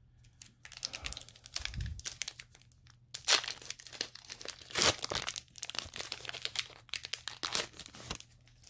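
Foil wrapper of a Pokémon Sun & Moon booster pack crinkling and tearing as it is ripped open by hand: a dense run of crackles, with the loudest rips about three and five seconds in.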